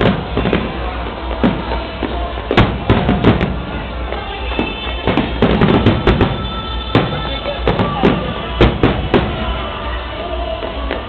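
Aerial fireworks exploding in a rapid, irregular string of sharp bangs, thickest in the middle, with music playing underneath.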